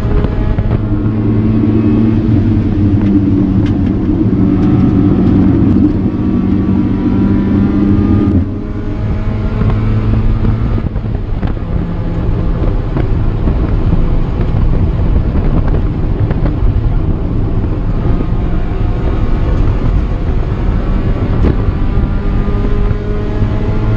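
Cabin view of a 1995 Mazda Miata's 1.8-litre four-cylinder engine, breathing through an aftermarket exhaust, running hard at speed on track with wind and tyre noise underneath. The engine note is loudest for the first eight seconds or so, then drops abruptly and carries on at a lower, steadier level.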